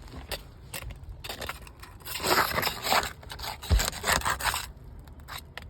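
Rough, irregular scraping and crackling against asphalt roof shingles, loudest between about two and four seconds in, with a low thud near the middle.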